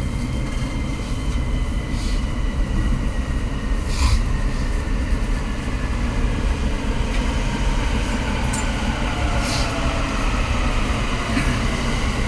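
Running noise of a commuter electric train heard from inside a passenger car: a steady rumble of wheels on rail, with faint whining tones that drift slowly in pitch. A few sharp clicks come through as the wheels cross rail joints and points.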